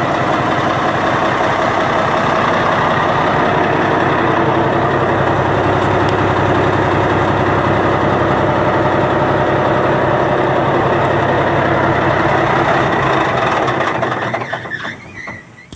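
Cat 627E scraper's diesel engine running at a steady idle; the sound falls away near the end.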